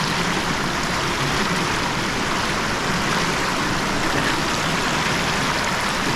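Small creek running and splashing over rocks, a steady rushing of water.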